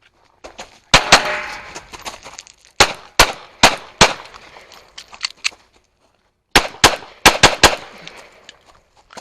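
Pistol shots from a small backup-gun pistol fired in a timed course of fire. A single shot comes about a second in, then a quick string of four shots, a few fainter cracks, and a second fast string of about five shots. Each shot rings out briefly.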